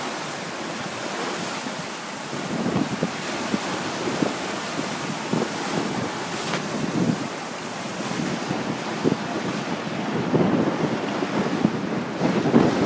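Wind buffeting the microphone over the rush of waves along a sailboat under sail in about 23 knots of wind; a steady noisy wash with gusts rising and falling.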